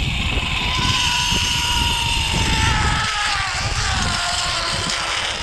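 Zipline trolley pulleys running along the steel cable: a whine that falls slowly in pitch as the rider slows on the approach to the platform, over a low wind rumble that drops away about three seconds in.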